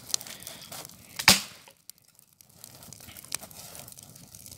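Small brushwood campfire crackling in irregular snaps and pops, with one sharp loud snap about a second in.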